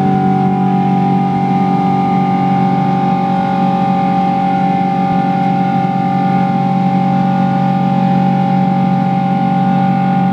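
Steady jet engine drone heard inside the cabin of a Boeing 777-200 climbing out after takeoff, from its Rolls-Royce Trent engines: a deep hum with several steady whining tones held above it.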